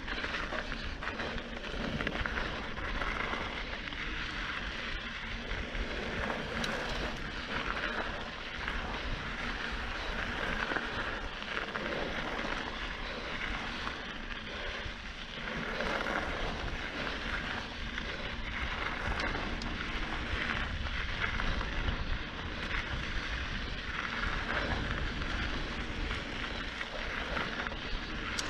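Mountain bike rolling fast down a dry dirt singletrack: steady tyre noise on the dirt mixed with wind rushing over the camera's microphone, rising and falling with speed and bumps.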